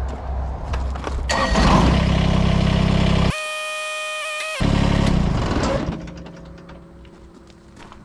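Kubota BX25D compact tractor's three-cylinder diesel running while the front loader is raised. The engine gets louder about a second in and carries a high, steady whine for about a second near the middle. It then drops back to a quieter idle for the last couple of seconds.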